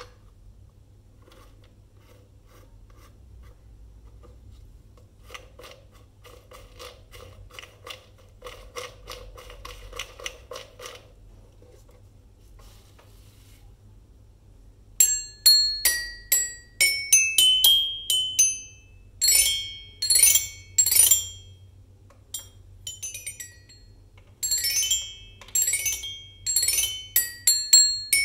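Toy xylophone with metal bars played with a wooden ball-headed mallet: clear ringing notes struck in quick runs that step up the scale, then clusters of fast strikes. Softer tapping comes first, before the playing starts about halfway through.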